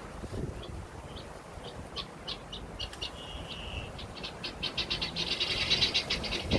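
A bird calling with short high chirps, spaced at first and then coming faster into a rapid trill in the second half, over a low rumble of wind on the microphone.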